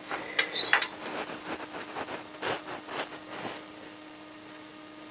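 Light metallic clicks and knocks of steel spanners on a motorcycle engine-mount locknut as it is tightened by hand, a handful in the first three or four seconds, then quieter. A faint steady hum sits underneath.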